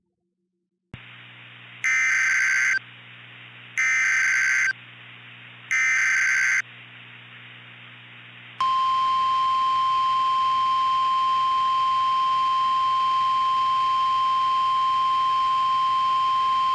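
Emergency Alert System SAME header: three identical one-second bursts of warbling digital data tones, about two seconds apart, over a low hum. About 8.5 seconds in a steady, piercing single-pitch weather radio warning alarm tone starts and holds, opening a tornado emergency alert.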